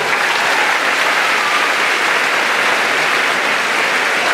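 Audience applauding, a steady dense clapping without a break.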